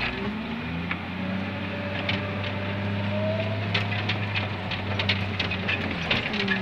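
Wheel loader's diesel engine running, heard from inside the cab. The revs climb a little under a second in, hold steady, and drop near the end, with rattling and clanking from the machine throughout.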